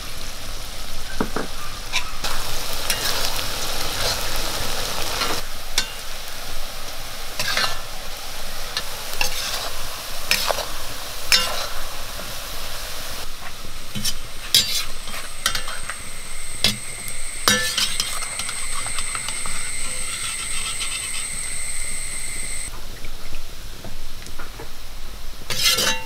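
Sliced onions sizzling as they fry in oil in an iron kadai, cooking down to golden brown. A perforated metal skimmer stirs them, with repeated scrapes and clinks against the pan. A steady high-pitched tone sounds for several seconds in the second half.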